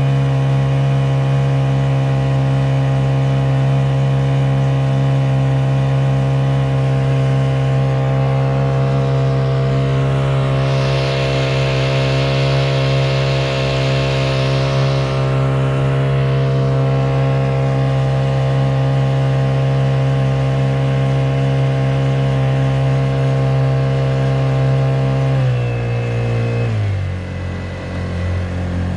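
Honda GX50 four-stroke single-cylinder air-cooled outboard on a kayak, running steadily at constant speed. A hissing noise joins for a few seconds in the middle. Near the end the engine pitch drops in two steps as it is throttled back.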